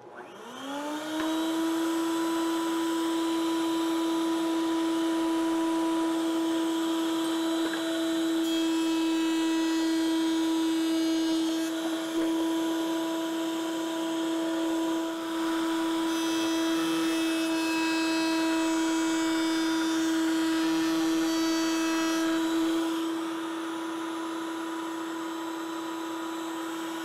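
Router in a router table spinning up with a rising whine, running at a steady high pitch while a workpiece is fed past a 45-degree chamfer bit to cut a chamfer, with rougher cutting noise during the passes. Near the end it winds down with a falling whine.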